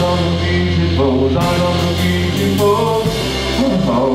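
Live rock band playing: a male singer over two electric guitars, bass guitar and a drum kit, with cymbal hits ringing out.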